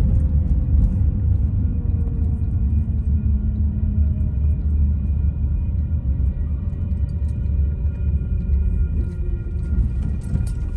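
Steady low rumble of a car driving slowly, heard from inside the cabin, with faint thin high tones running above it.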